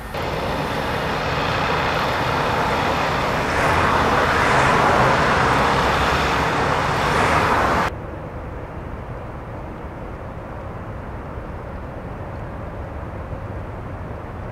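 Loud, steady outdoor noise with no clear pitch, swelling a little in the middle. About eight seconds in it cuts off abruptly to a quieter steady background noise.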